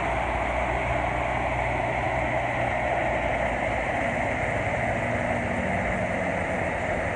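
Muddy floodwater rushing along a concrete drainage canal and spilling over the drops in its lining: a steady rushing sound, with a low hum underneath for the first three seconds or so.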